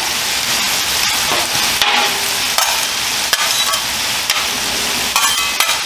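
Beef, red peppers and onions with teriyaki sauce sizzling steadily on a hot gas flat-top griddle. Broad metal spatulas scrape and clack against the griddle top every second or so as the food is tossed.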